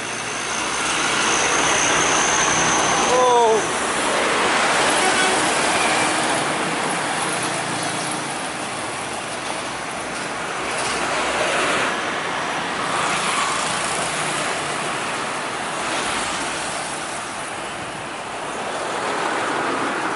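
Busy road traffic close by: an intercity coach, trucks and motorcycles driving past, a steady rush of engines and tyres that is loudest in the first few seconds as the coach goes by, then eases and swells again.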